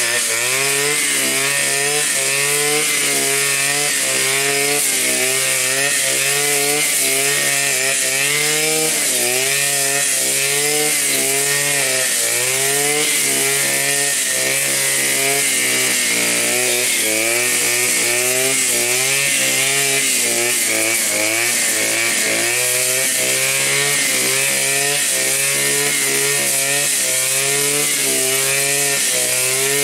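Blade Alpin 520 two-stroke petrol brushcutter running under load while cutting tall grass, its engine speed rising and falling as it cuts, with a longer dip for a few seconds around the middle.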